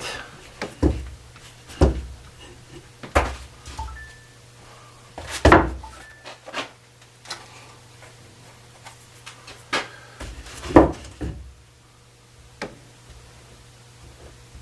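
Irregular wooden knocks and clunks as chair parts are handled and set against a countertop during a glue-up, the strongest about five and a half and eleven seconds in.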